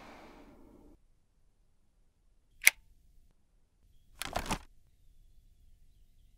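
Airflow hiss of a Dyson Purifier Cool tower fan dying away in the first second as the fan is switched off. After a pause comes a single sharp click. About a second and a half later there is a short clatter of clicks as the release buttons on the side of the fan's perforated base shroud are pressed and the shroud unlatches.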